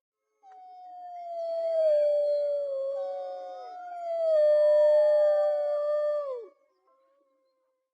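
Wolves howling together: long, overlapping howls that start about half a second in, glide slowly down in pitch, and end with a sharp drop about six and a half seconds in.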